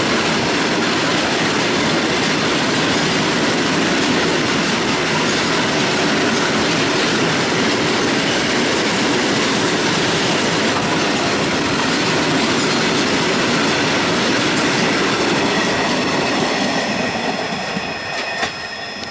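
Train running on the rails: a loud, steady rumble and rattle of steel wheels on track. Near the end it falls off and thin high squealing tones from the wheels come through.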